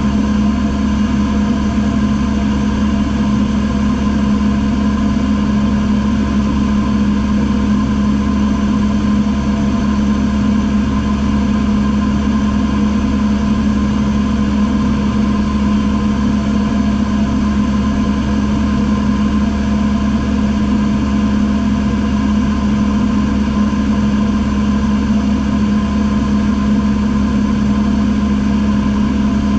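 Single-engine piston airplane's engine and propeller running steadily in flight, heard inside the cabin as a loud, even drone that holds one pitch throughout.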